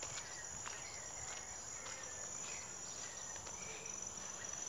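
Insects trilling in the surrounding vegetation: a steady high-pitched buzz.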